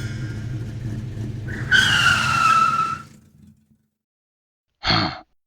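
Car sound effects: an engine running, then a loud tyre screech that falls in pitch as the car brakes hard and fades out. A short, sharp thump follows about five seconds in.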